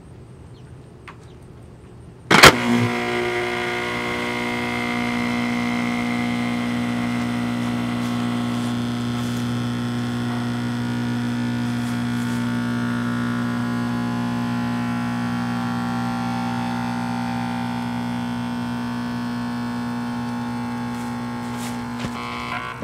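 Rival countertop blender switching on with a sharp knock about two seconds in, then its motor running with a steady hum as the blades churn a soda can in the jar. It stops suddenly near the end.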